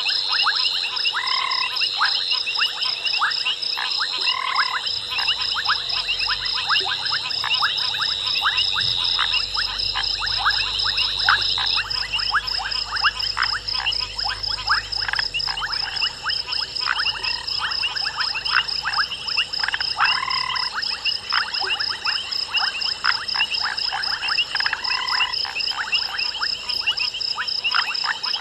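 Night frog chorus: many frogs calling in dense, rapid clicks, with a steady high pulsing trill behind. A few short, louder calls stand out about four times.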